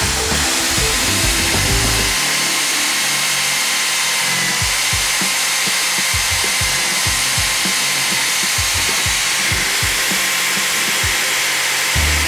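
Handheld rotary tool spinning a wire wheel against a rusty steel wrench, a steady high whine over the hiss of the wire bristles scrubbing rust off the metal.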